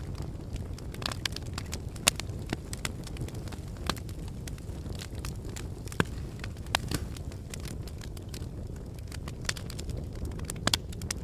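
Burning firewood crackling: irregular sharp pops and snaps over a low steady rumble. A few louder pops stand out, about two seconds in, around six and seven seconds in, and near the end.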